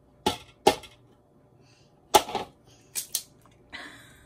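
An egg being knocked against the rim of a bowl to crack it: about six sharp taps coming in pairs, the loudest about two seconds in.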